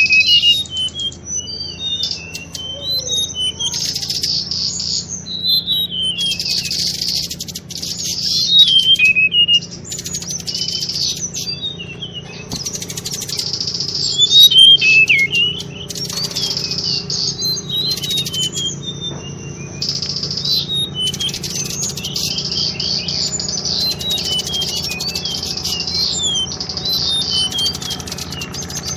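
Tledekan bakau (mangrove blue flycatcher) song used as a lure call: quick, high chirping and warbling phrases repeated again and again, with a steady low hum underneath.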